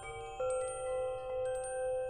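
Wind chimes ringing, several overlapping tones struck one after another. The loudest strike comes a little under half a second in, and its low tone rings on, slowly swelling and fading under lighter, higher strikes.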